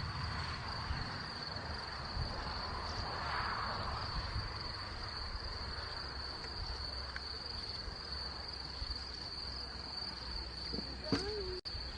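Insects chirring steadily in one high, unbroken note, over a low even rumble; a brief voice sounds near the end and the sound cuts off suddenly.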